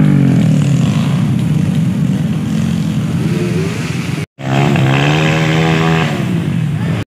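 Dirt bike engines revving hard under load up a steep muddy climb, the pitch rising and falling with the throttle. The sound cuts out for a moment about four seconds in, then a bike picks up again with rising revs.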